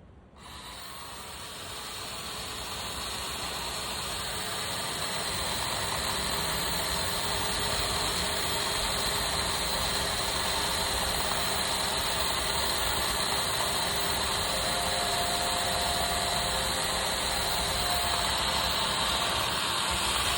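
Chainsaw starts suddenly and runs steadily, growing louder over the first few seconds and then holding an even level.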